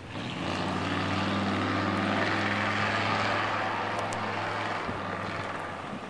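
A motor vehicle passing: a steady low engine drone with road hiss comes in, holds, and fades about five seconds in.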